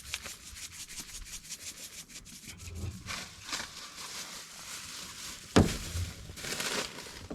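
Quick rubbing and scraping strokes of hands working oil and seasoning into a raw trout, with one sharp thump about five and a half seconds in.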